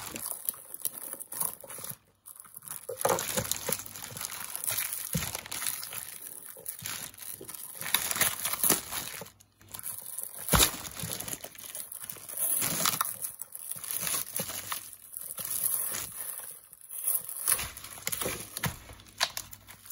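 Plastic wrapping crinkling and rustling as it is pulled off a frozen whole chicken by hand, in irregular crackles with small clicks. One sharp knock about halfway through.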